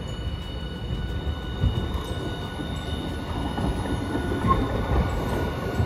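Hiroden Green Mover APEX articulated low-floor tram rolling slowly through a sharp street-track curve: a steady low rumble of wheels on rail with a faint steady high-pitched whine above it and a few short knocks.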